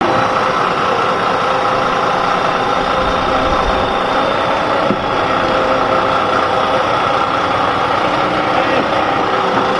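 Engine of a large boat-handling forklift running steadily as it carries a boat on a cradle.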